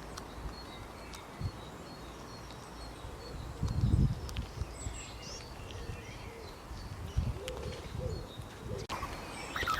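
Faint high chirping calls over outdoor ambience, including a short run of evenly repeated high notes early on, with a low rumble about four seconds in. Near the end a cut brings in louder, busier chirping.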